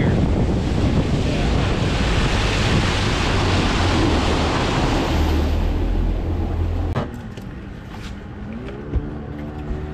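Bass boat running at speed: outboard motor, wind rushing over the microphone and water rushing along the hull, all stopping suddenly about seven seconds in. The rest is quieter, and near the end a steady engine hum comes in, rising in pitch and then holding.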